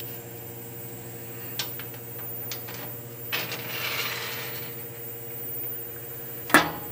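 Steel T-nuts handled and slid into the T-slots of a milling machine's steel table: a few light metal clicks, a scraping slide about three and a half seconds in, and a sharp metal clack near the end, over a steady low hum.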